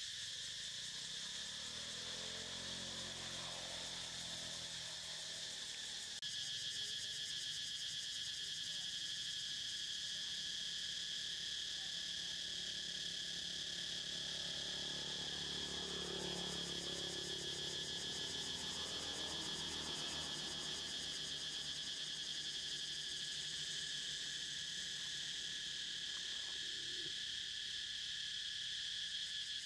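Insects droning in a steady, high-pitched chorus, a little louder from about six seconds in. A faint low rumble swells and fades in the middle.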